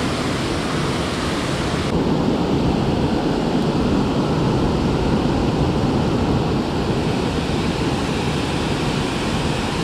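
Steady rush of river water pouring over a low dam spillway, its tone shifting slightly and getting a little louder about two seconds in.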